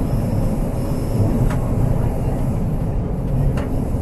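Tyne and Wear Metro train running, heard from inside the carriage: a steady low rumble, with two brief sharp ticks about a second and a half in and again near the end.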